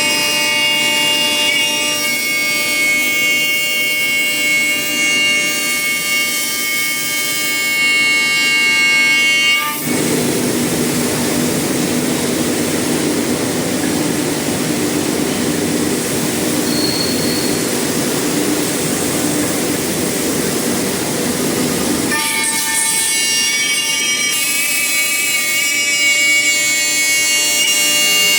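Five-axis CNC wood router running, with a steady high-pitched whine of several held tones. For about twelve seconds in the middle, a rough, dense rushing noise takes over.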